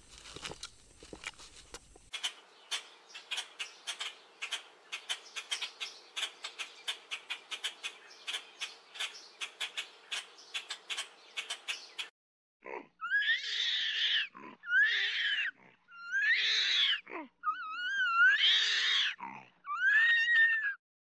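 A fast, irregular run of dry clicks for about ten seconds. Then, after a short pause, five loud squealing animal calls, each about a second long, with a pitch that rises and falls.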